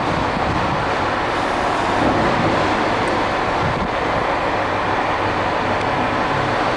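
Steady, loud rushing background noise with a low hum beneath it.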